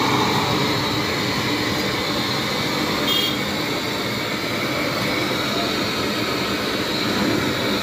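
Hose-fed gas blowtorch burning steadily with a loud, even rushing noise as it singes the skin of a hanging rooster carcass.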